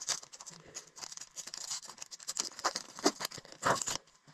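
Foil wrapper of a hockey card pack being torn open and handled, a dense run of crinkling crackles with a few sharper rips, stopping about four seconds in.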